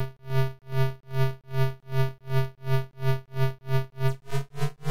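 ZX Spectrum 128K chiptune sound: a low, buzzy synth tone pulsing about two and a half times a second, the pulses quickening, with higher tones beginning to glide upward near the end.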